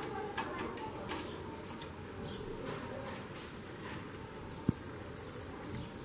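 Female white-bellied seedeater (chorão) calling over and over with short, high, thin chirps, roughly one a second: the 'xaxando' call that keepers take as the sign of a hen in breeding condition ('fogo crônico'). A few light clicks in the first second and one soft thump about three-quarters through.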